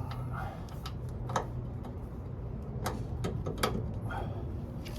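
A few separate light metallic clicks and clinks of hardware and tools being handled while fitting a truck leaf spring, over a steady low hum.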